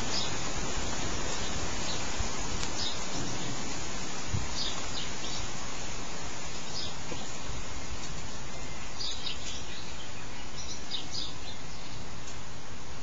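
A steady hiss of background noise, with short, faint, high bird chirps scattered through it, in small clusters every second or two.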